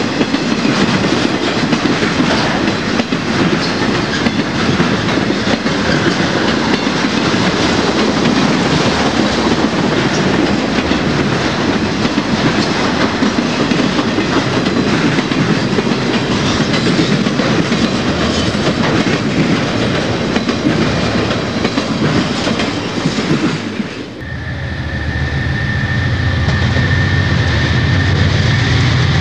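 Freight train of trailers on flatcars rolling past at speed: a loud steady rumble and rush with the wheels clicking over rail joints. About 24 seconds in it cuts to an approaching Conrail diesel locomotive consist, a lower engine rumble with a thin steady high tone over it.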